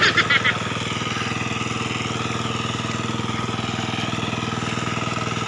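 Hand tractor (kuliglig) engine running steadily at one even speed. A few short, sharp, high chirps sound in the first half second.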